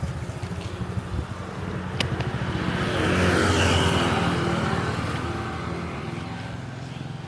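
Road traffic: a motor vehicle's engine runs steadily, and a vehicle passes close by, growing louder to a peak about halfway through and then fading away. There is a sharp click about two seconds in.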